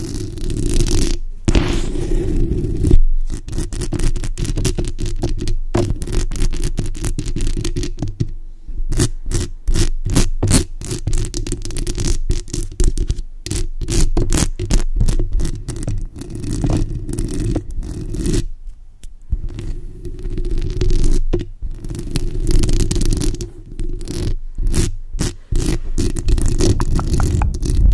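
Long acrylic fingernails scratching and tapping directly on a bare microphone's metal mesh grille, very close to the capsule: rapid scritchy strokes and clicks over a low rumble, with a couple of brief pauses.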